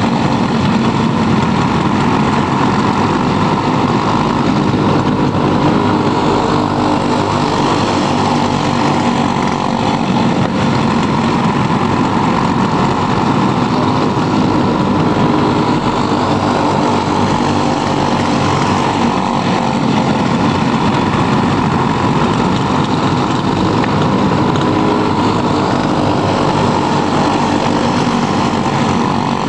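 Several racing karts with Briggs & Stratton Animal single-cylinder four-stroke engines running at race speed as a pack, a continuous engine drone that never drops out.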